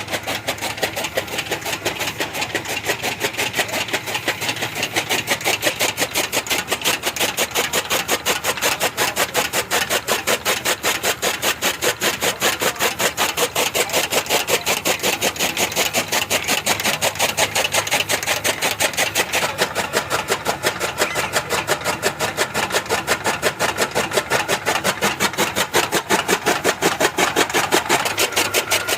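Motor-driven fodder cutter (chaff cutter) running, with a fast, even beat of strokes several times a second and a steady machine noise under it.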